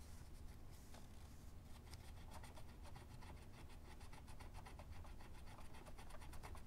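Faint, quick back-and-forth scrubbing of a small metal model-locomotive wheel with an abrasive pad, cleaning its tarnished tread to make it shiny.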